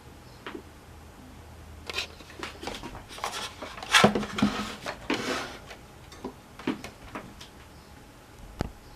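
Irregular clicks, knocks and short rustles of things being handled, with the loudest knocks about four and five seconds in and a sharp knock near the end.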